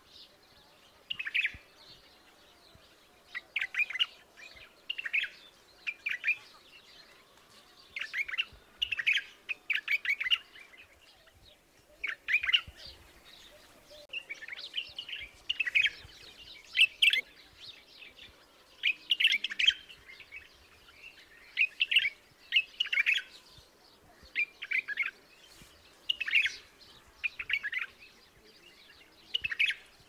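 White-eared bulbul (Pycnonotus leucotis) singing: short whistled, warbling phrases of about half a second each, repeated every one to two seconds.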